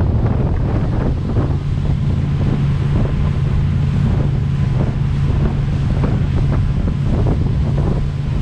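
Motorboat engine running at a steady pitch under heavy wind buffeting on the microphone, with rushing water.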